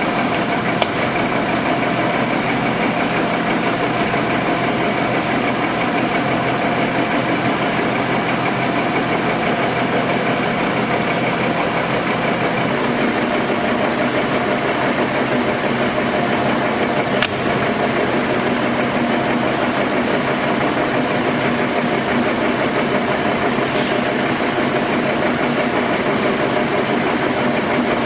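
Keiyo Seiki KM-1800C engine lathe running under power, a steady geared hum and whine with several fixed tones. About thirteen seconds in, the low tone shifts slightly higher, and there are a couple of faint clicks.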